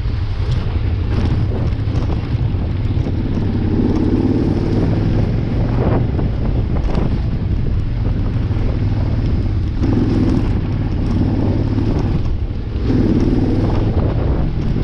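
Adventure motorcycle engine running while riding a rough dirt track, swelling with the throttle about three times, with wind rushing over the microphone and occasional knocks from the bumpy ground.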